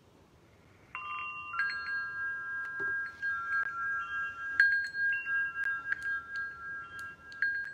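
Wind chimes ringing after about a second of near silence: clear metal tones at several pitches, struck at irregular moments and overlapping as they ring on.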